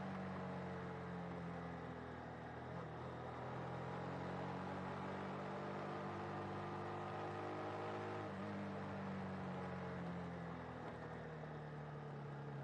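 Honda Winner V1 (Winner 150) motorcycle's single-cylinder engine running while the bike is under way. The engine note holds for stretches, dips and climbs again a few times, and settles lower near the end.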